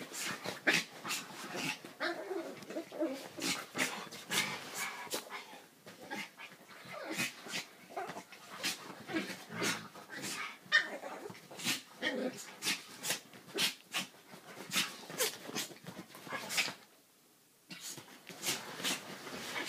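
A rat terrier and a Weimaraner play-fighting: a rapid string of short, sharp sounds mixed with dog vocalising, pausing for about a second near the end.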